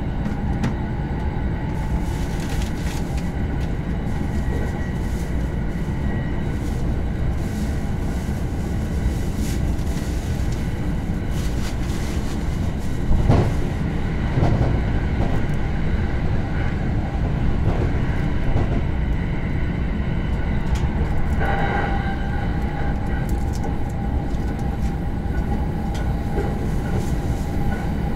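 Running noise of a Shōnan–Shinjuku Line commuter train heard from inside its Green car: a steady rumble of wheels on rail. A cluster of clacks from rail joints comes about halfway through.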